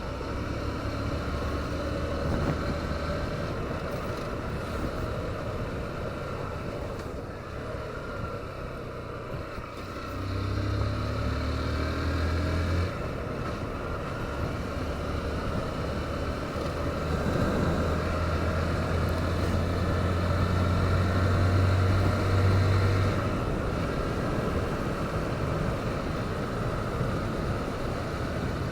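Motorcycle engine running while riding, under steady wind and road noise. The engine pulls harder and rises in pitch about ten seconds in and again from about seventeen seconds, easing off a little after twenty-three seconds.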